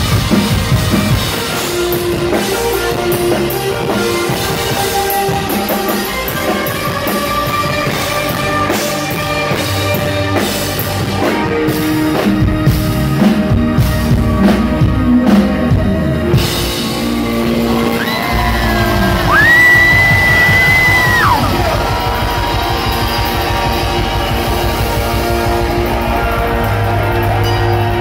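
Rock band playing live, heard from the audience: electric guitar, keyboard and drum kit. About two-thirds of the way in, a high note slides up and is held for a couple of seconds before falling away.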